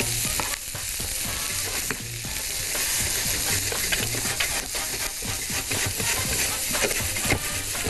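Beef chunks, onion, carrot, hot pepper and garlic sizzling in butter in a frying pan, stirred with a utensil that clicks against the pan: sautéing the meat and vegetables to caramelise them.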